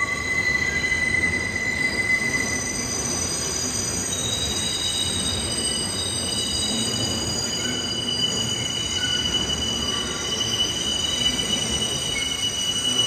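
New York subway 6 train R62A cars rolling around the tight curve of the City Hall loop, their steel wheels squealing on the rails, the squeal caused by the sharp curve. Several high, steady squeal tones sound at once and shift in pitch as different wheels take them up, over a low rumble of the running gear.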